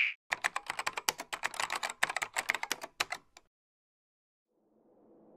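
Rapid, irregular clicking of keyboard typing for about three seconds, stopping abruptly; faint music begins to fade in near the end.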